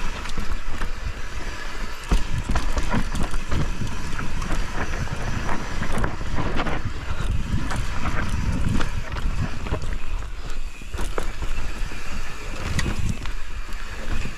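Mountain bike descending a loose, rocky dirt trail: tyres rolling over dirt and rock with a steady rumble, the bike rattling with many sharp clicks and knocks, and wind on the microphone.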